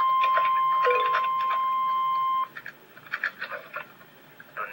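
Emergency Alert System weather warning alert tone: a single steady high tone (the National Weather Service 1050 Hz alarm) that cuts off suddenly about two and a half seconds in, leaving only faint background sounds.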